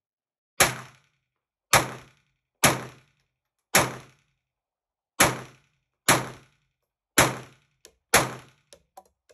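Walther P22 .22 LR semi-automatic pistol firing eight shots at a slow, deliberate pace, roughly one a second, each a sharp crack with a short echo, cycling without a jam. A few faint clicks follow the last shots near the end.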